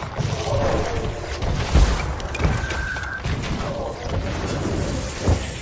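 Artillery shellfire in a war-film soundtrack: dull booms over a continuous rumble, the heaviest about two seconds in and another near the end.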